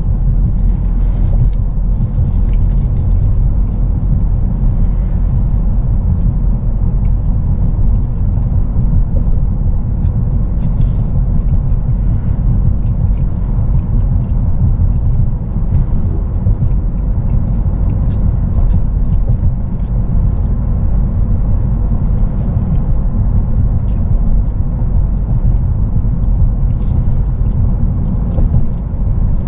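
Car driving, heard from inside the cabin: a steady low rumble of road and engine noise, with faint light ticks now and then.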